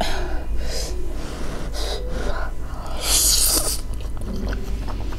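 Close-up mouth and breath noises of a person eating 2x spicy cheesy Buldak noodles: several short breathy hisses, the loudest about three seconds in.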